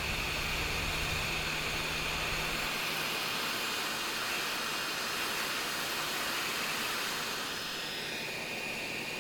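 Steady airflow hiss from a small fan, with a thin high whine running through it; a low hum underneath drops out about three seconds in.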